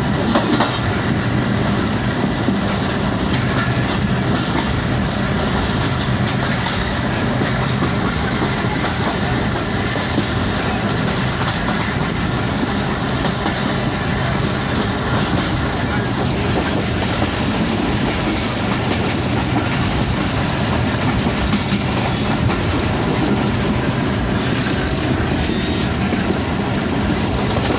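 Passenger train running along the track, heard from inside a carriage: a steady, loud rumble of wheels on the rails.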